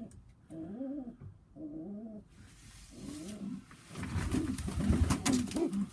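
Tippler pigeons cooing in a loft: three wavering coos in the first few seconds, then more cooing under a louder rustle with sharp clicks from about four seconds in.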